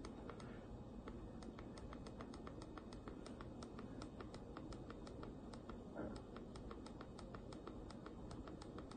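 Faint, evenly spaced clicking, about four clicks a second, from a PONYBRO mini wireless keyboard used to scroll down a web page. A soft thump comes about six seconds in.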